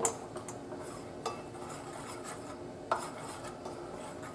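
A metal spoon scraping and stirring thick honey and lemon juice in a dish, clinking sharply against it three times: at the start, about a second in, and about three seconds in.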